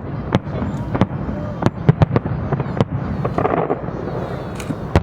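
Fireworks going off: many sharp bangs at irregular intervals over a continuous low rumble of distant bursts.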